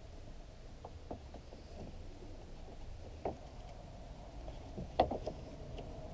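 A few light clicks and taps as the lead terminal clamp of a car battery's positive cable and its bolt are handled, the sharpest about five seconds in, over a low steady rumble.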